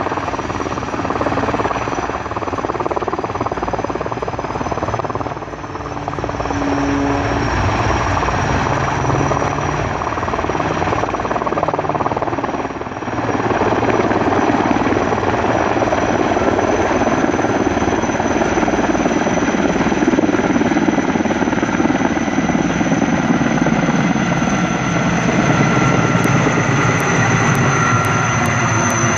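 Sikorsky S-64 Skycrane heavy-lift helicopter running at power, its twin turbines whining high and steady over the rotor noise. It grows louder about halfway through as it lifts off and climbs.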